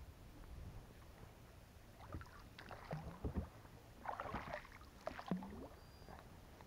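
Faint knocks, short squeaks and splashing from a small inflatable boat being moved on the water. They come in a few clusters between about two and six seconds in.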